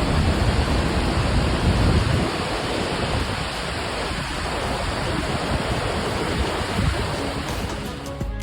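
Låtefoss waterfall crashing down close by: a loud, steady rush of falling water, with uneven low buffeting of wind on the microphone.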